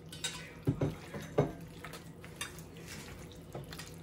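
Raw chicken being mixed by hand into an egg and flour marinade in a stainless steel bowl, with the bowls clinking and knocking. A few sharper knocks come in the first second and a half, then fainter taps.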